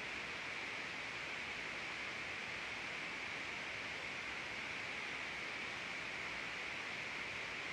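Steady, unchanging hiss with a slightly brighter middle, and no other sound: the background noise floor of a live-stream microphone.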